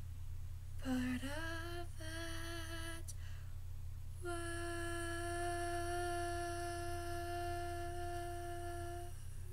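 A young woman singing slowly, unaccompanied: a rising slide into a short note about a second in, another held note, then one long steady note from about four seconds to near the end. A steady low hum runs underneath.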